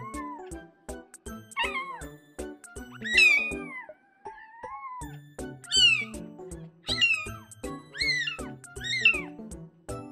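A roughly 10-day-old kitten mewing over and over, about eight short high cries, each rising then falling in pitch. Background music with a steady beat plays under it.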